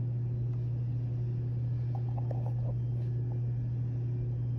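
A steady low hum that does not change, with a few faint, brief tones about two seconds in.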